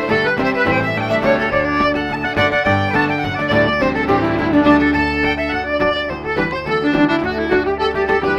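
Irish traditional dance tune played at a lively pace by fiddle and two-row button accordion in unison over a strummed acoustic guitar accompaniment.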